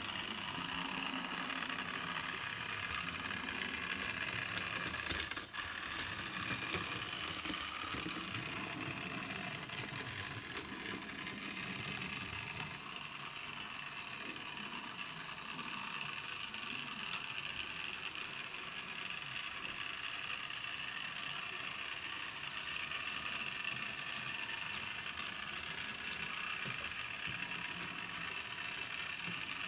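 Motorised OO-scale model tram running on its track, the small electric motor drive and gearing whirring steadily, with a brief dip about five and a half seconds in.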